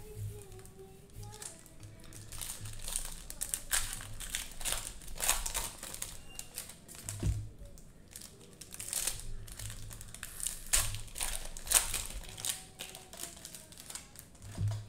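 Crinkling and crackling of Prizm basketball cello packs, cellophane-wrapped trading card packs, as gloved hands pick them up and stack them, in many short irregular bursts.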